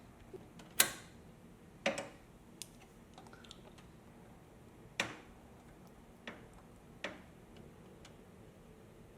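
Irregular sharp clicks and knocks, about seven, from computer parts being handled and fitted during PC assembly; the loudest comes about a second in.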